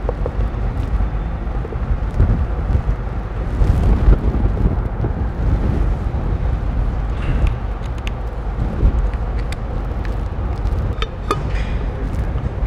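Steady low rumble of workshop background noise, with a few light clicks from a T-handle hex key turning the cover screws, two close together near the end.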